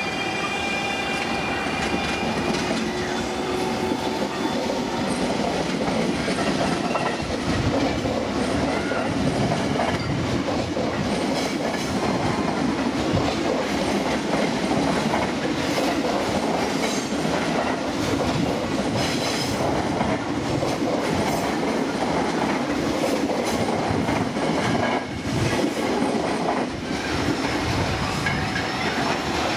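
KRL commuter electric multiple-unit train running past close by: a steady rumble of steel wheels on rail, with repeated clacks as the wheels cross rail joints. Thin high tones sound over it in the first few seconds.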